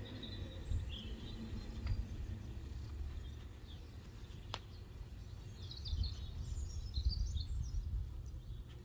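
Outdoor ambience: scattered faint bird chirps over a low, uneven rumble, with a single sharp click about halfway through.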